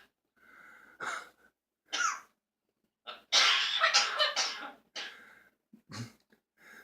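Talking pet bird coughing in a string of short, harsh bursts, with one longer coughing fit about three seconds in. The owner takes the cough for a sign of a bad cold.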